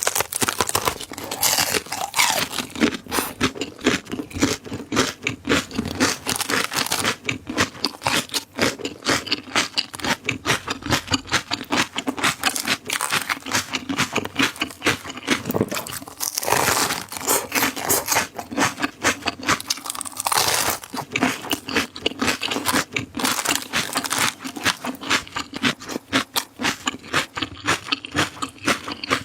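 Close-up crunching and chewing of crisp raw vegetables, a rapid, continuous run of wet crunches with louder bites every few seconds.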